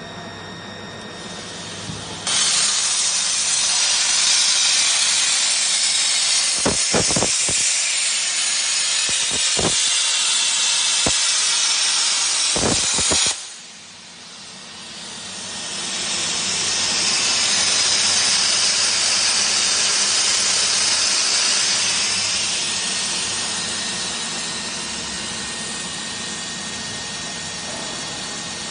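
CNC plasma cutting torch hissing loudly as it cuts through thin steel sheet. The hiss starts abruptly about two seconds in, with a few short pops, and cuts off sharply about halfway through. It then swells back up and slowly tapers off toward the end.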